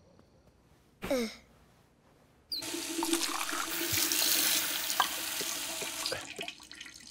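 Bathroom sink tap turned on about two and a half seconds in, water running loudly into the basin and into a cup held under it, with a couple of small clinks, then shut off near the end. Before it, about a second in, comes one short falling whistle-like tone.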